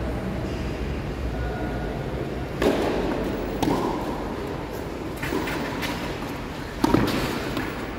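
Tennis rally: the ball struck by racquets and bouncing on the court, four sharp hits in the second half, the last the loudest, over a steady low rumble.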